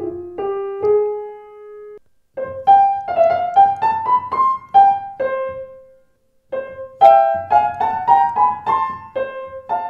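Restored c1887 Blüthner style VIII grand piano with new strings and new hammers, played in its treble singing area. A few held notes ring on, then come two quick rising runs of single notes, each run ending on a note left ringing.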